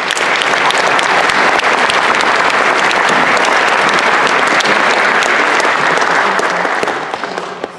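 Audience applauding, a steady patter of many hands that dies down near the end.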